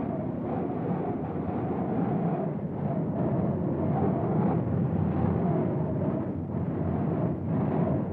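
Strong storm wind blowing in gusts, low and rumbling, with a faint wavering howl riding over it.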